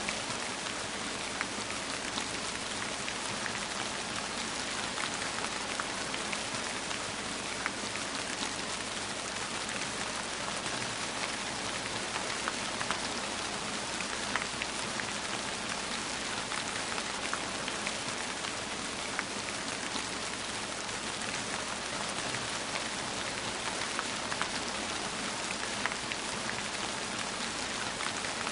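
Steady rain falling, a dense even hiss with individual drops ticking sharply on a surface scattered throughout.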